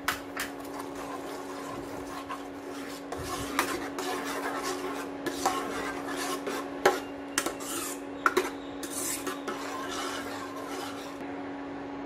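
Steel ladle stirring and scraping thick, grainy milk halwa around a pan, with several sharp clinks of the ladle against the pan. A steady hum runs underneath.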